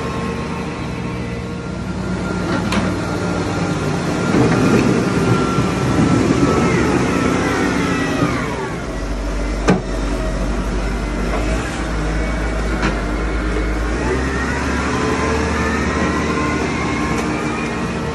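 Diesel wheel loader working: its engine runs under load, with a high hydraulic whine that rises and falls as the bucket works. A few sharp clanks, the loudest about ten seconds in.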